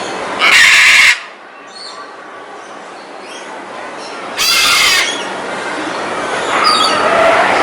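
Scarlet macaw screaming: two loud, harsh squawks about four seconds apart, with fainter calls near the end.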